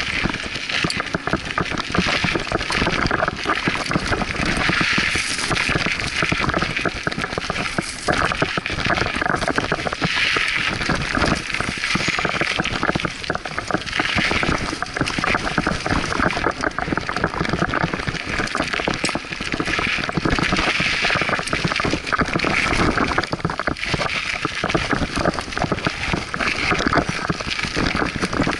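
Scott Aspect 35 hardtail mountain bike ridden down a dry dirt singletrack: continuous dense rattling of the bike and crunching of its tyres on the trail.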